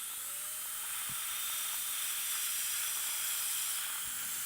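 Dental rotary handpiece spinning up and running steadily while polishing a temporary crown: a smooth hiss with a faint steady whine.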